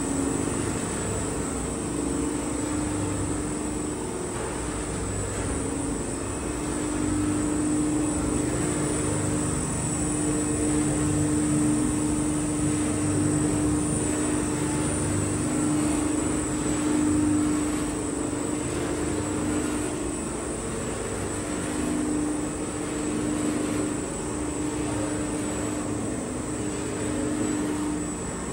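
Electric gear-motor drives of a GM-3000 multi-unit cold-press screw oil press running, a steady mechanical hum at a fixed pitch with a faint high whine over it.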